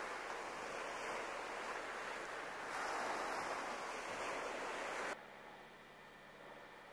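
Steady rushing noise of wind and sea on an exposed rock, a little louder about three seconds in, cutting off abruptly about five seconds in.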